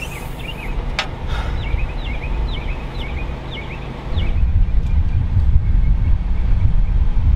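Outdoor ambience: an uneven low rumble that grows louder about four seconds in, under a bird chirping in quick, repeated falling notes through the first half. A single sharp click comes about a second in.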